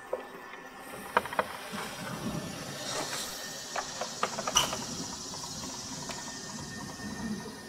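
Hand-cranked wooden crankie box being handled and its scroll wound: a few sharp wooden knocks and clicks, and a hiss as the Tyvek scroll slides across the frame. Its bearings are greased, so there is no squeak.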